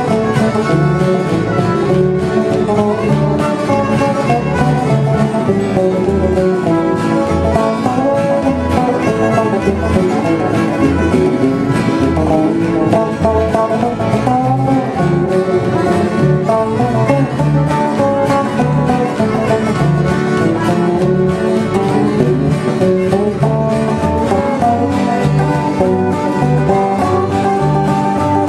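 Live country music played on acoustic and electric guitars, instrumental with no singing, over a steady beat of low bass notes.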